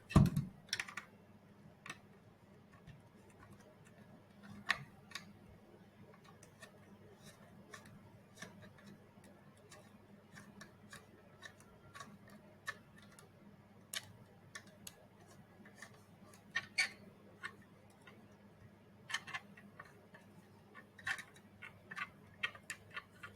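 Scattered light clicks and taps at irregular intervals as robot head parts are handled and fitted together, over a faint steady low hum.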